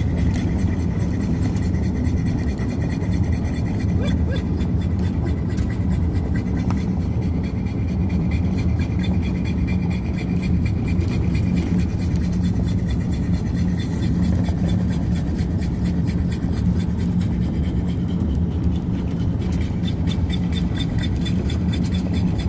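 Steady engine and road noise heard inside a moving vehicle's cabin, a constant low hum.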